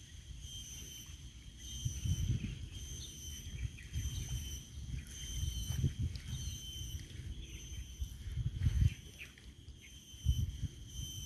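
Insects buzzing in a steady high chorus that swells and fades about once a second, over the low uneven rumble of wind buffeting the microphone.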